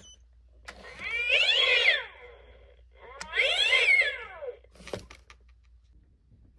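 Gemmy Fraidy Cat animated Halloween toy playing two recorded cat yowls, each about a second long with pitch rising and falling, a second or so apart. A short click follows about five seconds in.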